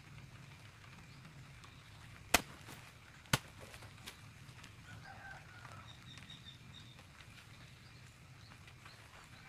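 A hand hoe chopping into garden soil: two sharp knocks about a second apart, then a fainter third. Faint bird chirps come a couple of seconds later.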